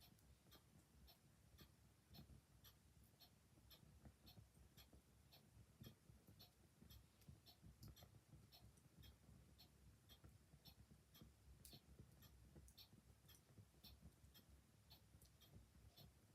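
Clock ticking faintly and steadily, about two ticks a second, with an occasional soft crackle from an open fire and a low rumble beneath.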